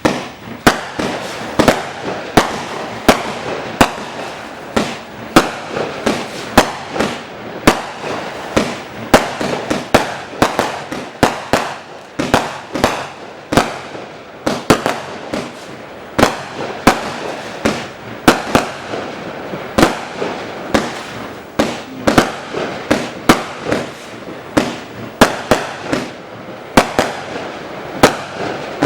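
A 256-shot, 0.8-inch compound fireworks cake firing in a continuous rapid barrage: loud shot reports about one to two a second over steady crackling, with no pause.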